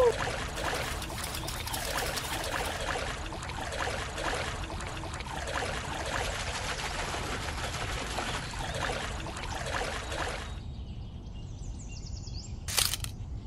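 Water trickling and splashing, as from a small lift net being raised out of a shallow pond. About ten seconds in it cuts off suddenly to a quieter stretch, broken by one sharp click near the end.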